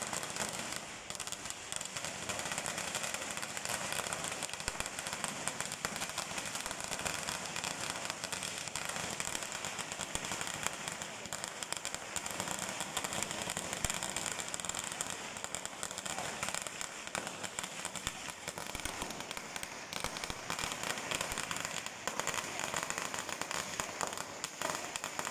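Firecrackers going off in a rapid, continuous crackle of sharp cracks that keeps up without a break.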